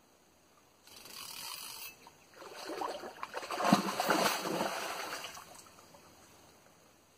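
Hooked golden dorado thrashing and leaping at the river surface, splashing water: a shorter splash about a second in, then heavier splashing that peaks near the middle and dies away after a few seconds.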